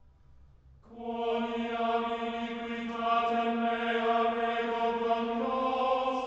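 Background music: a sung chant that comes in about a second in and holds one long note, its pitch stepping up slightly near the end.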